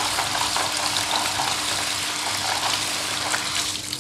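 Kitchen tap running into a stainless steel sink, water splashing over pea eggplants in a plastic colander as they are rinsed by hand. The flow stops near the end.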